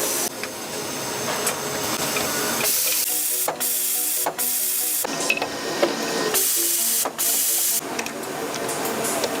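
Factory machinery sounds with three bursts of loud hissing, each under a second long, over mechanical clattering.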